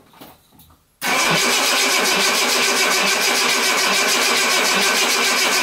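1975 Jaguar XJ6's straight-six engine cranked over on the starter motor with the throttle wide open, for a wet compression test on cylinder six. It starts suddenly about a second in and keeps up a steady, even beat.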